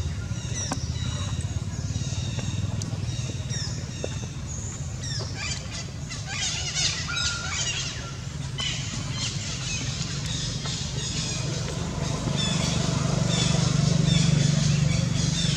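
A steady low engine drone, growing louder over the last few seconds, with many short high chirping calls scattered over it.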